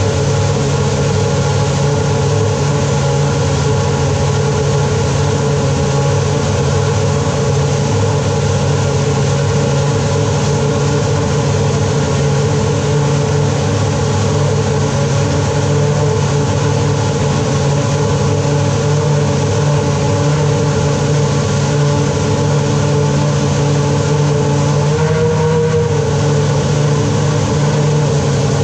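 Ferrari F1-2000's 3.0-litre V10 Formula One engine running at a steady idle while warming up in the garage.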